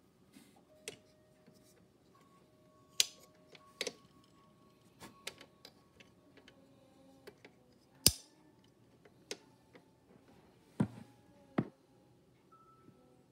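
Scattered clicks and knocks from hands working the controls and tone arm of a vintage RCA Victor portable tube record player, with a sharp click about eight seconds in and two knocks close together near eleven seconds. Faint steady tones run underneath.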